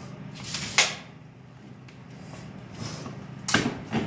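Steel tape measure blade retracting and snapping shut into its case about a second in, then a few shorter clacks and knocks near the end, over a steady low hum.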